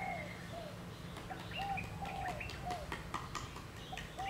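Birds calling: a run of short, arched notes, about two a second, over a steady low hum, with a few light clicks as the green papaya is peeled.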